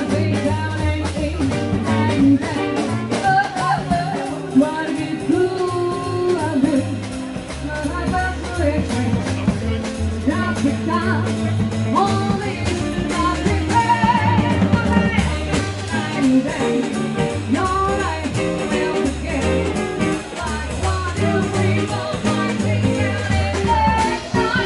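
Live band playing dance music with a singer, an upright double bass pulsing steadily underneath.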